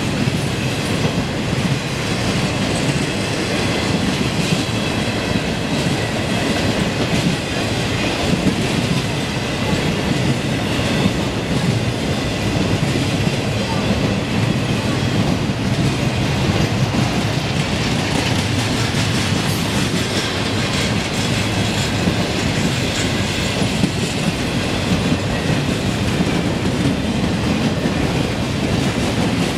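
Train rolling through a grade crossing, its wheels on the rails making a steady, loud rumble that continues without a break.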